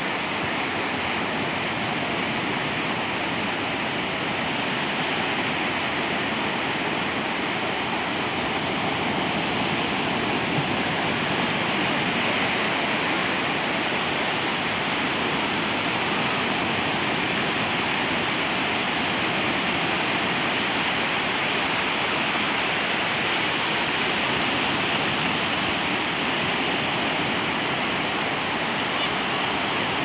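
Sea waves washing up onto the shore, a steady rushing noise that stays even throughout, with no separate breakers standing out.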